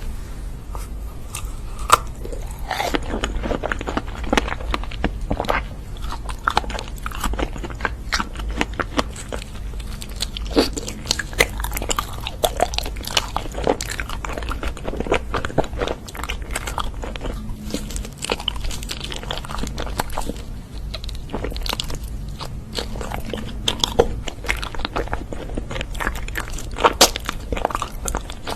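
Close-miked eating of crunchy food: a steady run of irregular crunching bites and chewing.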